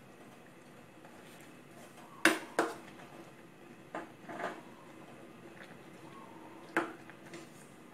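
A metal ladle stirring napa cabbage in an enamel pot of soup, knocking against the pot about five times. The loudest two knocks come close together a couple of seconds in, and another comes near the end.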